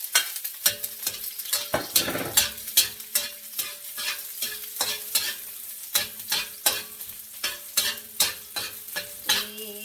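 Garlic sizzling in hot oil in a pan while a spatula stirs and scrapes it, with many quick clicks of the spatula against the pan. A faint steady hum runs underneath.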